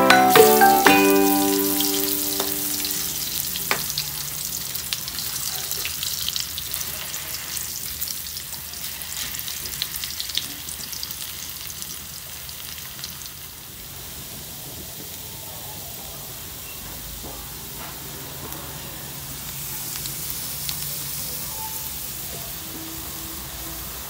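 Cubed potatoes sizzling as they fry in hot oil in a pan, with a spatula stirring them near the start. The sizzle grows gradually fainter.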